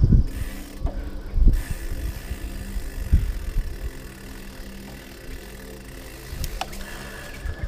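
Hardtail mountain bike rolling fast along a concrete path: tyre rumble and rattling of the bike, with a few heavy low thumps over bumps in the first three seconds.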